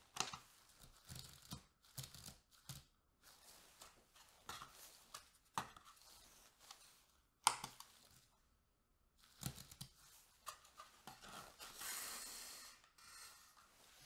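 Plastic yogurt cup and its paper label being handled on a small digital kitchen scale: light clicks and rustles as the cup is set down and picked up, the sharpest click a little past the middle, and a longer tearing sound near the end.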